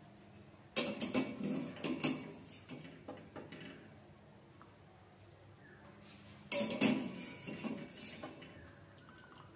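Wire-mesh skimmer clinking and scraping against a steel pot as parboiled vegetables are scooped out of stock, in two bursts of a couple of seconds each, about five seconds apart.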